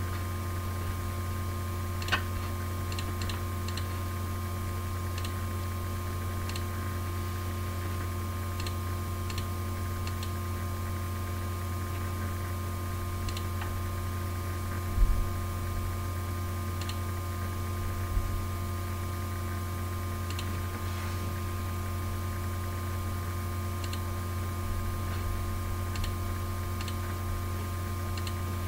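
Steady low electrical hum with a few faint, scattered ticks, and two brief low thumps about halfway through.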